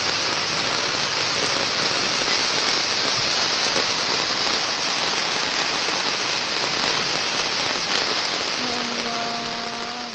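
Heavy rain pouring down steadily in a windstorm, a dense even hiss that begins to fade right at the end. A faint steady tone joins in near the end.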